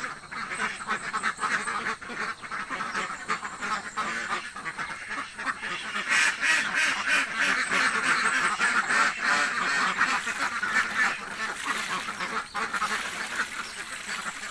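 A flock of domestic ducks quacking constantly, many calls overlapping, growing louder about halfway through: hungry ducks calling.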